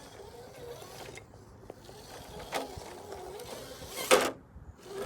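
RC crawler's electric motor and geared drivetrain whining, the pitch wandering with the throttle, with a couple of sharp knocks, the loudest about four seconds in.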